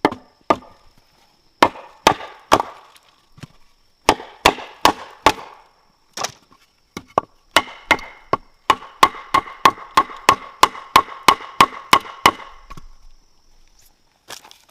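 A blade chopping into bamboo, each stroke a sharp knock with a short hollow ring. The blows come in a few short groups, then a fast even run of about three a second.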